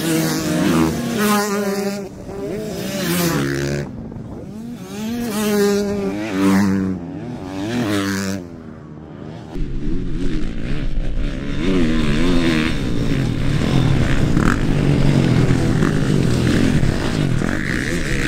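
Motocross dirt bikes racing past, engines revving hard: the pitch climbs steeply and drops back again and again as the riders accelerate and change gear. About nine seconds in the sound turns into a denser, steadier mix of several bikes' engines at once.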